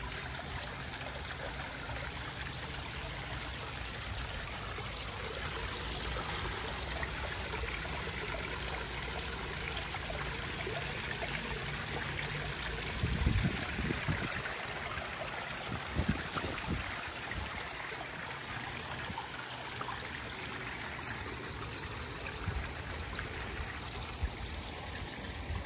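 Steady trickling and splashing of water from a pond fountain and a small stepped waterfall running into a koi pond. Two dull low bumps come about halfway through.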